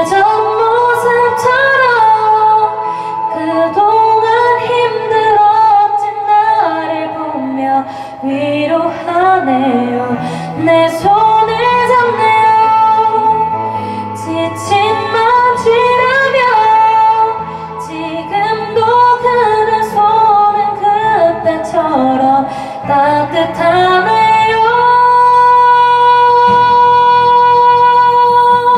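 A woman singing a slow Korean ballad into a karaoke microphone over a backing track, holding one long note near the end.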